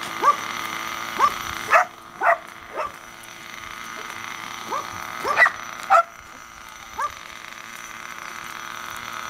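A dog barking repeatedly in short, high yips, some coming in quick pairs, over a steady background hum.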